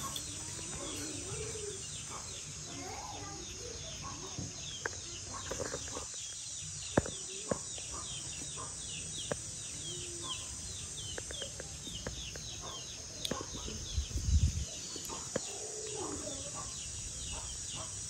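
Chickens clucking now and then over a steady high insect hiss, with a short chirp repeating about three times a second. A few sharp clicks come in the middle, and a low thump near the end.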